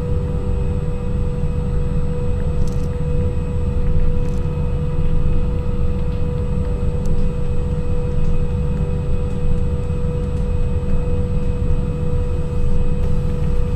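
Simulated jet engine and taxiing rumble from a full-motion flight simulator's sound system: a steady low rumble with a constant whine above it.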